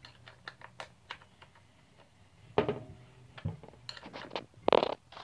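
Wrench clicking and clinking on a chainsaw's bar-mounting nuts as they are tightened: a scatter of light metal knocks, with louder clanks about two and a half seconds in and near the end.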